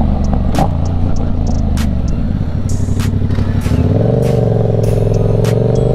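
Motorcycle engine running under way. About four seconds in, the engine note steps up and climbs slowly as the bike pulls harder. Short sharp clicks are scattered throughout.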